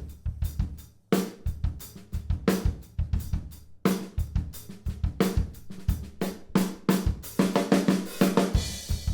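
Recorded acoustic drum kit played back: kick, snare, toms, hi-hat and cymbals in a groove, with short breaks about a second in and just before four seconds. A cymbal wash swells near the end.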